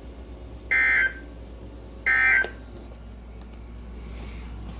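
Two short squawks of EAS/SAME end-of-message data tones from a NOAA Weather Radio broadcast, about a second and a half apart. They are the last of the three bursts that close an alert, and a low radio hiss follows them.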